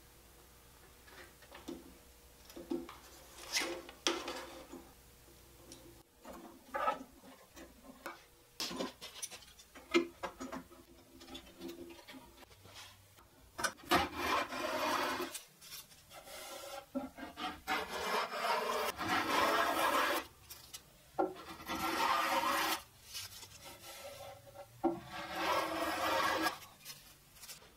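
Poplar edge-banding trim being fitted and clamped to a desk top, with scattered knocks and clicks, then a hand block plane shaving the trim flush in about four long scraping strokes in the second half.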